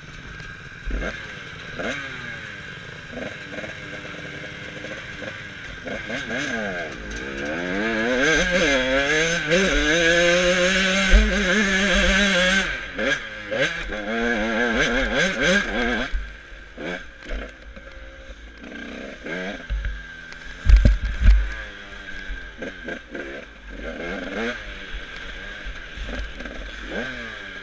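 Dirt bike engine revving up and down through the gears. The revs climb hardest and loudest about a third of the way in, then ease off. A few heavy thumps, the loudest about three quarters of the way through, come from the bike hitting bumps.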